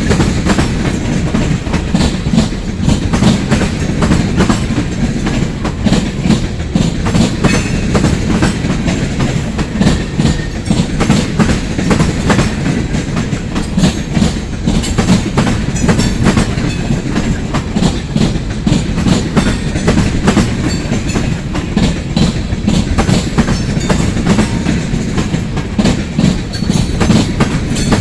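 Freight train cars rolling past, a steady clatter of wheels over rail joints over a continuous low rumble.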